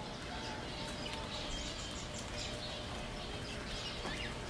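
A flock of small birds chirping, many short calls overlapping, over a steady low rumble.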